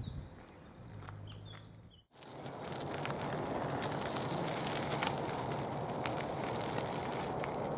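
Outdoor ambience: small birds chirping in short falling calls over a low hum for about two seconds, then after an abrupt cut a steady rushing noise with scattered crackles and clicks.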